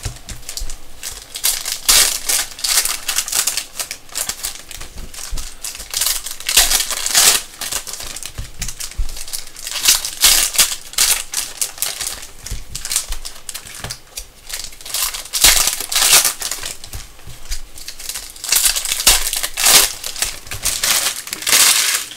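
Foil trading-card pack wrappers being torn open and crinkled by hand: a run of sharp crackling rustles in loud clusters with short pauses between them.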